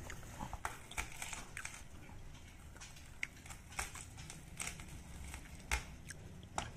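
Shallot and garlic cloves being crushed under a stone pestle on a plastic cutting board: faint irregular cracking and crackling, with a few sharper snaps.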